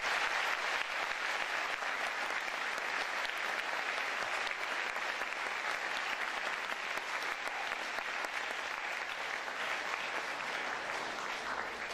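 Audience applauding: a steady round of clapping that eases off slightly near the end.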